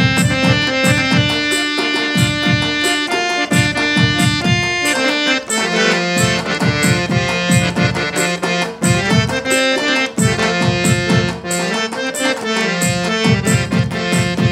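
Instrumental interlude between verses of a Nagpuri folk song: a harmonium plays the melody in long held, reedy notes over a steady drum rhythm struck with sticks.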